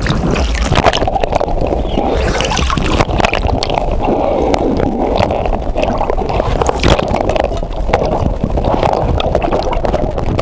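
Water gurgling and sloshing around a camera dipped underwater, muffled and churning, with irregular small clicks and knocks.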